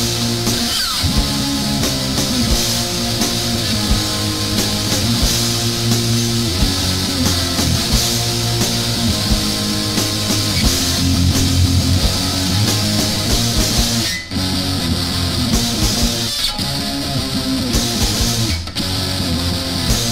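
Recorded UK hardcore anarcho-punk song, fast and guitar-driven. The band stops short for a split second about fourteen seconds in, and twice more before the end.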